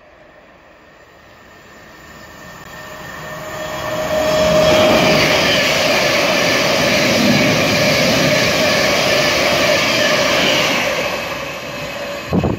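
White electric multiple-unit passenger train running through the station at speed. Its noise swells over a few seconds into a loud rush with a steady whine under it, holds, then starts to ease off. Near the end the sound breaks off abruptly into different rumbling noise.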